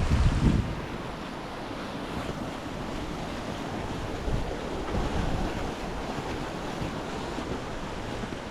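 Waterfall rushing steadily, with wind buffeting the microphone in the first second.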